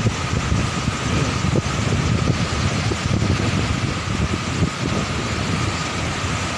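Rough surf breaking and washing over the shore as a steady rumbling roar, with wind buffeting the microphone in gusts. A faint, steady high tone runs underneath.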